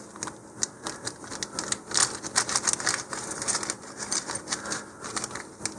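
A small clear plastic bag crinkling in the hands, with a steady run of irregular crackles, as it is worked open to get a coil of Kevlar shock cord out.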